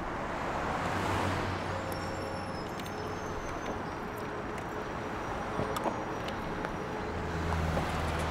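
Street traffic noise: a steady hum of cars that swells twice, with a few sharp clicks about two-thirds of the way through.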